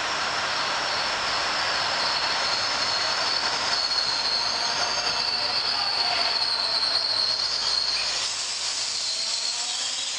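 Wheels and brakes of a Trenitalia Minuetto passenger train squealing as it rolls into the station and slows, a high-pitched squeal that wavers in pitch over steady rolling noise and fades near the end.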